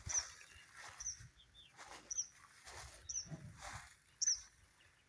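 A bird repeating a short, high chirp about once a second, with soft rustling noises in between.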